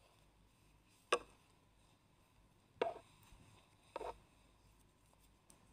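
Metal knitting needles clicking against each other three times, a second or more apart, while purl stitches are worked.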